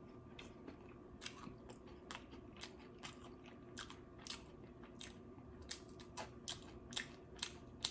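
A person chewing food close to the microphone: faint, wet mouth clicks and crunches, about three a second.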